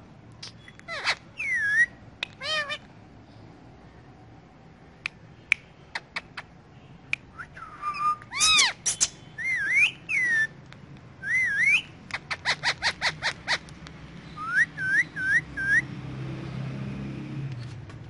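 Indian ringneck parakeet giving a string of whistles and squawky calls with sharp clicks between them, a quick run of short chirps about two-thirds through, then four short rising whistles.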